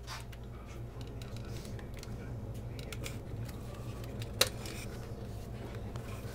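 Epoxy dispensing gun being squeezed to inject epoxy into a drilled anchor hole in concrete, its trigger and plunger giving scattered clicks, with one sharp click about four seconds in. A steady low hum runs underneath.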